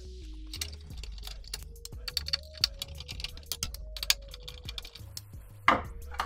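Scattered clicks and taps of a screwdriver and hands on the plastic cover panels of a Da Vinci Duo 3D printer as a panel is worked loose, with one louder knock near the end as it comes free. Soft background music plays underneath.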